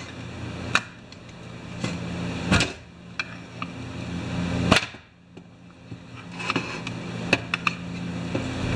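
Metal tool clinks as a screwdriver works on the carburetor and metal housing of a Homelite C51 chainsaw being taken apart: a few sharp clicks and knocks, two or so seconds apart, then several lighter ticks near the end. A low steady hum runs underneath and drops out briefly in the middle.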